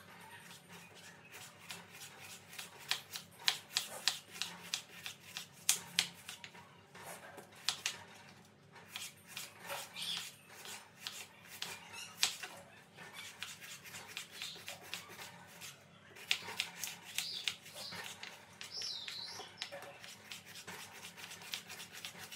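Kitchen knife slicing a red onion on a bamboo chopping board: a run of quick, irregular taps of the blade against the board, several a second, with a couple of short pauses.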